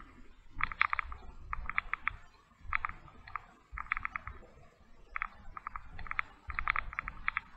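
Footsteps crunching on a gravel and dirt tunnel floor, a short scrunch with a dull thud about once a second.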